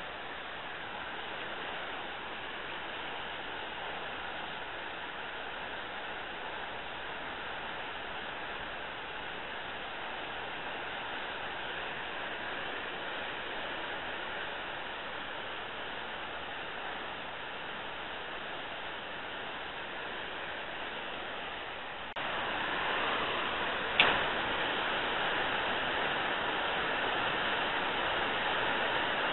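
Steady rush of water spilling over a river weir: an even hiss. It steps up louder about three quarters of the way through, and a single sharp click comes shortly after.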